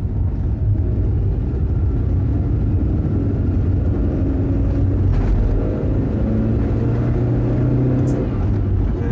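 Car engine and road rumble heard from inside the cabin of a moving car, steady throughout.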